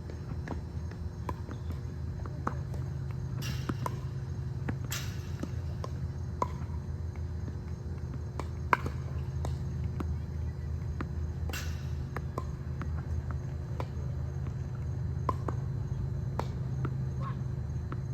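Tennis balls struck by a racket and bouncing on a hard court, heard as scattered sharp pops at irregular intervals over a steady low hum.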